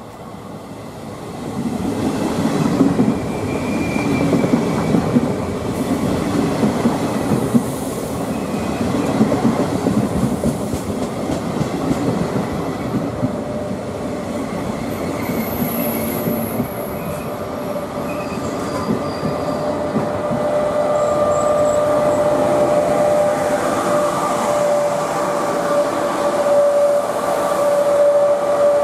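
Regional passenger train rolling along the platform, with a cab car leading coaches pushed by an FS E464 electric locomotive. The low rumble of wheels on rails builds in the first couple of seconds. About halfway through, a steady high squeal sets in and grows as the locomotive comes past.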